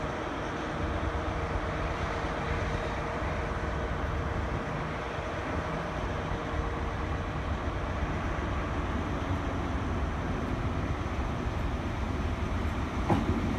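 Class 150 Sprinter diesel multiple unit running slowly into the platform: a steady low engine drone with a faint steady tone in the first half. A couple of sharp knocks come near the end.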